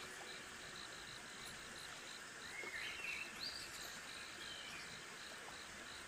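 Crickets chirping in a fast, even rhythm of about four to five chirps a second over a faint, steady hiss of light rain. A few short bird chirps come around the middle.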